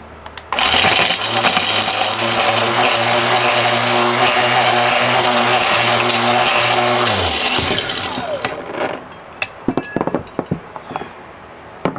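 Mighty Mill ore crusher started up and running loud, its motor humming under the rattle and grinding of female RJ45 connectors being shredded inside. About seven seconds in it is switched off and the motor hum falls in pitch as it spins down, followed by a few light clicks and knocks.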